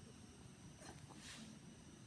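Near silence, with a faint soft rustle about a second in.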